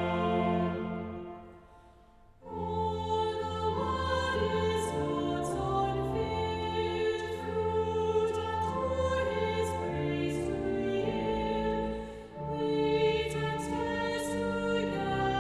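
Choir singing with instrumental accompaniment, church music. The music fades out about two seconds in, then a new phrase starts half a second later.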